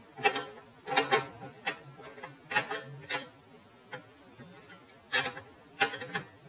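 Irregular metal clicks and knocks, some with a short ring, as the burner's fuel nozzle fitting and end plate are handled and fitted back onto the small motor.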